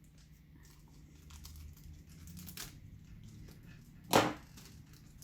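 Plastic packaging of model kit parts being handled: faint scattered rustles and small clicks, with one short, much louder crackle about four seconds in.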